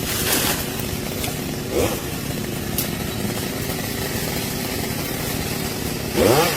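Chainsaw engine idling steadily, with two quick blips of the throttle that make the pitch shoot up: one about two seconds in and one near the end.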